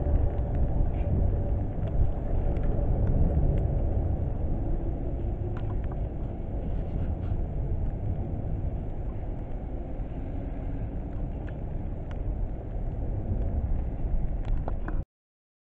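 London Underground 1973 stock Tube trains running on the track: a steady low rumble with scattered light clicks and a faint steady whine in the first few seconds. The sound cuts off abruptly just before the end.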